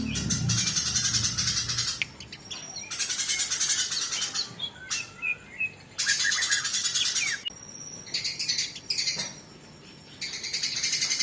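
Eurasian tree sparrows (burung gereja) squabbling in a fight, giving dense, rapid chattering calls with short sharp chirps. The chatter comes in bursts of one to two seconds with brief pauses between them.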